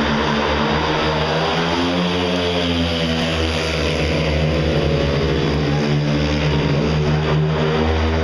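A pack of speedway motorcycles racing at full throttle, their 500 cc single-cylinder methanol engines making a loud, continuous blare. The pitch sags slightly and climbs again as the riders go through the bend.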